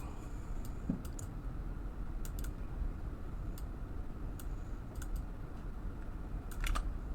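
Irregular, scattered clicks of a computer keyboard and mouse, about a dozen over several seconds, over a low steady background hum.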